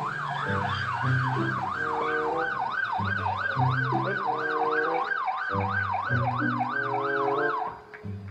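Police car siren wailing fast, its pitch sweeping up and down about three times a second, then cutting off shortly before the end, over background music.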